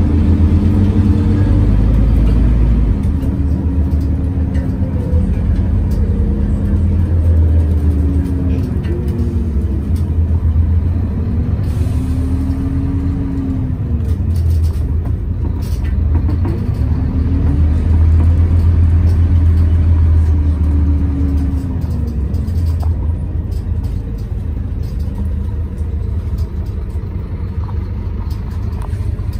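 Interior ride sound of a Scania OmniCity city bus with a ZF Ecomat automatic gearbox. A loud, steady drone from the always-on ventilation fan largely covers the engine. Over it, a drivetrain tone rises and falls in pitch several times as the bus speeds up and slows, and the sound eases off near the end as the bus slows.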